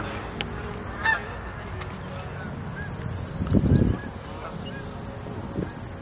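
A flock of geese honking repeatedly as they fly over, above a steady high drone of crickets. A brief low rumble comes about three and a half seconds in.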